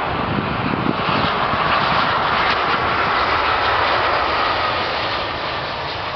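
Jet engines of an Airbus A320-family airliner passing close by, low on its landing flare. A steady rushing roar with a slowly falling whine, loudest about two to four seconds in and fading near the end.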